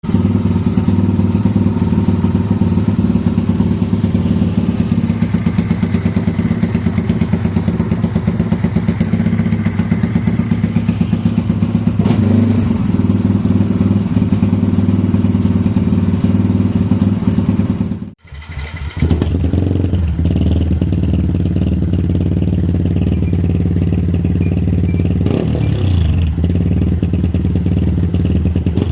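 Yamaha Y15ZR's 150 cc single-cylinder four-stroke engine idling steadily through an aftermarket performance exhaust. The sound breaks off for a moment just past the middle and then carries on.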